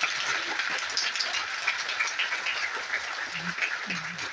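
Audience applauding: a dense, even clatter of many hands clapping that thins a little toward the end.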